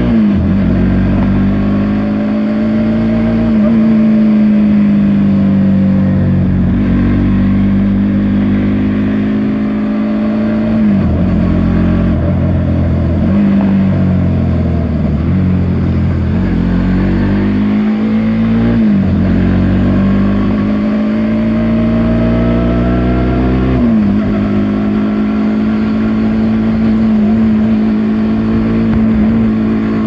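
Bajaj NS200's single-cylinder engine running under riding load, heard from the saddle over wind and road noise. Its steady note dips sharply and climbs back about six times as the throttle is rolled off and on.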